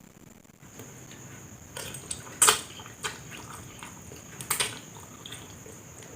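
Close-up eating sounds: wet chewing and mouth smacks on noodles, with a few sharp clicks, the loudest about two and a half seconds in and another near four and a half seconds.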